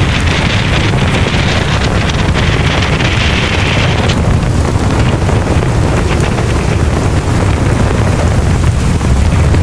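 Strong wind buffeting the microphone: a loud, steady low rumble with a higher hiss over it that drops away about four seconds in.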